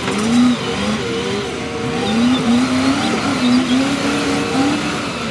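Large Caterpillar wheel loader's diesel engine working under load, its pitch rising and falling again and again as it revs up and eases off, with a steady hiss.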